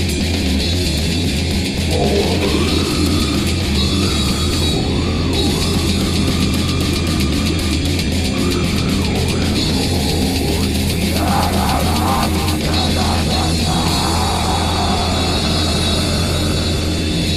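Lo-fi noise-grind music: a dense wall of heavily distorted guitar and drums, with a steady low drone underneath and bending, wavering distorted pitches over it for much of the time.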